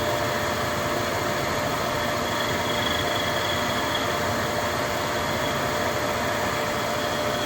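Myford CB cylindrical grinder running, its grinding spindle and motorized workhead giving a steady, even hum with a thin steady whine through it.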